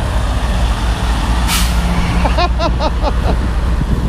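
Wind buffeting the microphone with a steady low rumble. About a second and a half in, a semi truck's air brakes give a short, sharp hiss of released air. A few brief high-pitched squeaks follow.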